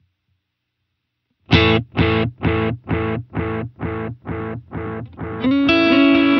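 Electric guitar chord through a Strymon TimeLine delay. After a short silence a chord sounds and repeats about twice a second, the repeats fading only slightly. Near the end they merge into a steady sustained wash as the repeats are swelled toward infinite.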